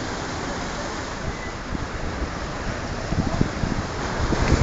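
Sea waves washing against a rocky shore, with wind buffeting the microphone, the gusts growing stronger about three seconds in.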